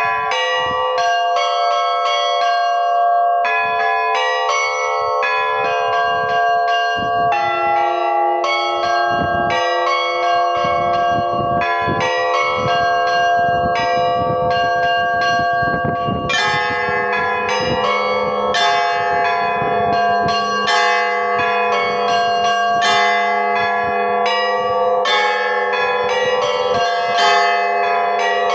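Russian church bells rung by a single bell ringer in a fast, steady rhythm of overlapping strikes from the small high bells over longer-ringing mid bells. A little past halfway a deeper bell joins with a steady hum beneath, and the ringing grows fuller.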